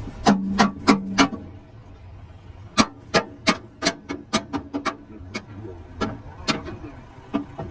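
Hand hammer striking metal in a series of sharp blows. Four heavy strikes ring briefly in the first second or so, then after a short pause come about a dozen lighter, quicker knocks.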